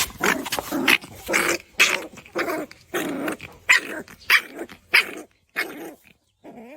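A dog barking repeatedly, about two sharp barks a second, stopping shortly before the end.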